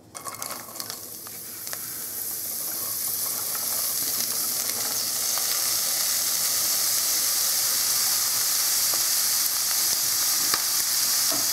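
Chopped green onion scapes dropped into a hot stainless steel pan of melted ghee: a few light clicks as the pieces land, then frying with a sizzle that builds over the first few seconds and settles into a steady hiss.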